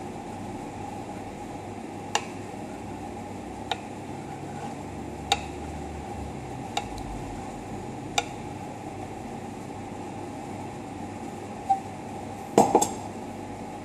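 Steady mechanical hum with single sharp clicks every second or so, then a short clatter of clinks near the end as the steel milk pitcher and cup are handled.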